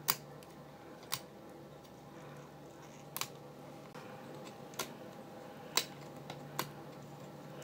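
About six faint, irregularly spaced sharp clicks as rubber bands are lifted one by one off the pegs of a plastic Rainbow Loom with a hook.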